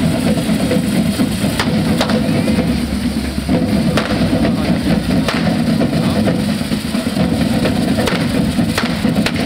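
Loud drumming by a Catalan diables troupe's drummers: a dense, continuous beat with sharp strikes standing out about once a second.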